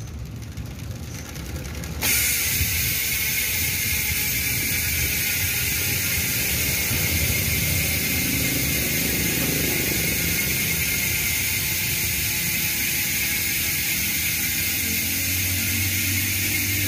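Strummer HM-350 Boost rear hub's six-pawl freehub ratcheting as the wheel coasts. It makes a loud, steady, high wasp-like buzz that starts abruptly about two seconds in.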